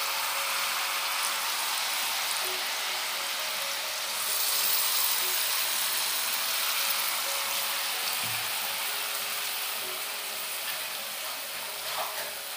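Banana and rice-flour batter sizzling in hot oil in a wok as lumps are dropped in by hand, a steady hiss that grows louder about four seconds in.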